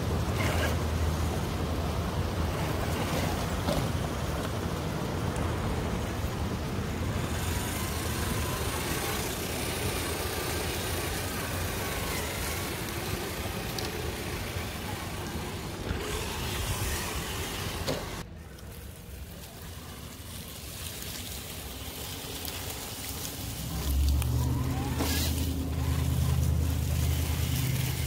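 Radio-controlled scale trucks running through mud and water, their motors and tires making dense, steady noise. The sound cuts off abruptly about two-thirds through, and a low steady hum comes in near the end.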